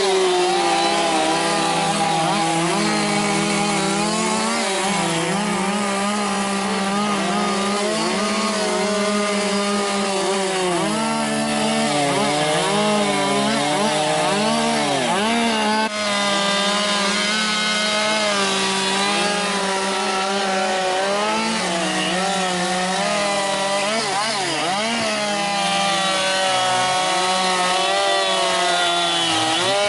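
Chainsaws carving wood, their engine pitch rising and falling with throttle and as the chain loads up in the cut.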